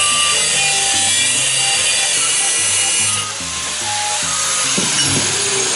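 Angle grinder with a cut-off wheel cutting through steel angle stock, a steady loud grinding hiss. About three seconds in the hiss drops and the grinder runs on more quietly.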